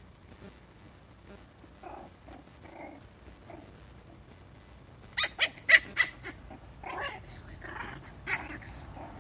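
Puppies yapping and growling as they play-fight. Soft grumbles come first, then a quick run of sharp, high yaps about five seconds in, and a few more near the end.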